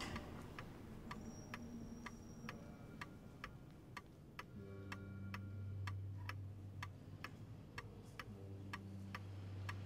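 Clock ticking steadily, about two ticks a second, with a low steady hum that comes in about halfway through.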